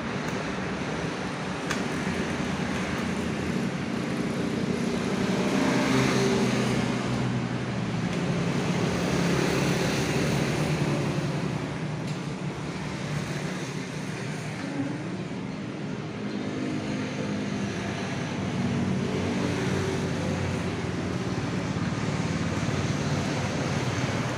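Road traffic and engine noise: a steady low rumble that swells and fades, with a few faint clicks near the start.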